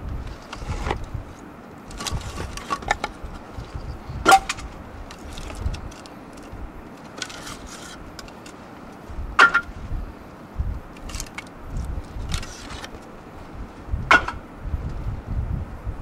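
Split firewood pieces being pulled from a stacked pile, wood knocking and clattering against wood, with three sharp clacks about four, nine and fourteen seconds in.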